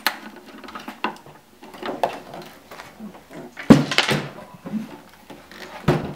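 Clicks, scrapes and knocks of a long-shafted Torx screwdriver working the screws in a Macintosh SE's plastic case, then the computer being handled on the table, with a loud thump a little past halfway and another knock near the end.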